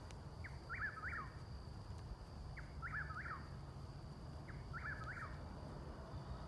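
Eastern whip-poor-will singing faintly: its three-part whistled 'whip-poor-will' song, given three times about two seconds apart.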